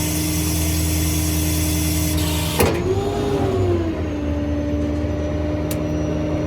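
Service truck's running diesel engine and hydraulic pump, with a high hiss while a hydraulic function is worked. About two and a half seconds in a sharp clunk cuts the hiss off, and the pump's tone sags briefly and recovers as the load drops off.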